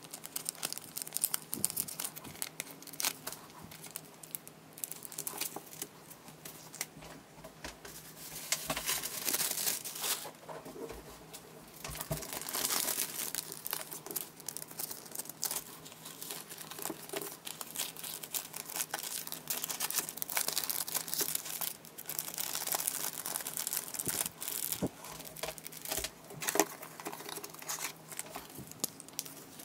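Clear plastic cellophane sleeves crinkling and rustling as stickers, a card and a notepad are slid into them and handled with nitrile-gloved hands, in irregular bursts with short pauses.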